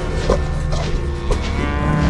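Cow mooing in drawn-out calls, one rising in pitch near the end, over background music with a low steady drone.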